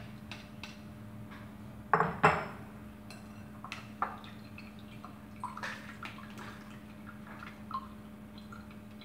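A metal sieve and white ceramic bowls clinking and knocking while soaked bread is pressed through the sieve with a spatula, with water dripping into the bowl. Two louder knocks come about two seconds in, then lighter scattered ticks.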